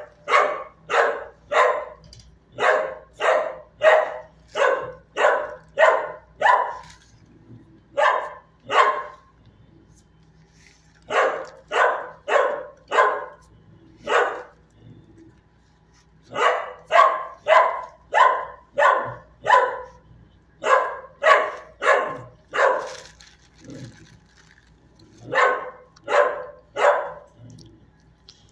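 A dog barking over and over, in runs of several barks a little under two a second, with short pauses between the runs.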